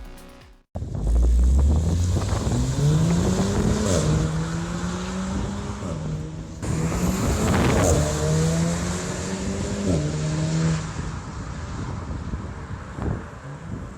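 Volkswagen Golf R's turbocharged 2.0-litre four-cylinder, breathing through a VWR R600 cold air intake, accelerating hard. The engine note climbs in pitch and drops back at each gear change, several times over, then fades away near the end.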